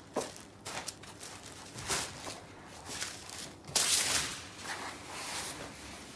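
Saree fabric rustling and swishing as hands unfold and shift it across a table, in a series of irregular swishes with the loudest about four seconds in.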